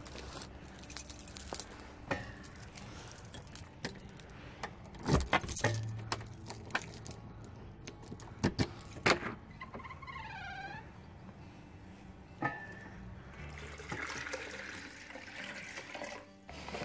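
Keys jangling and a key being worked in a front-door lock, with repeated metallic clicks and knocks. A short wavering squeak comes about ten seconds in.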